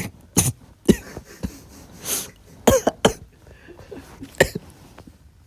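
A man coughing in a fit, about six short, harsh coughs spread over a few seconds, after food or drink went down the wrong way.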